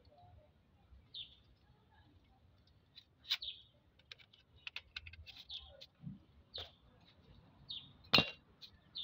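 Birds chirping in the background, with scattered light clicks and one sharp metallic clink near the end as the fuel pump and filter assembly is handled.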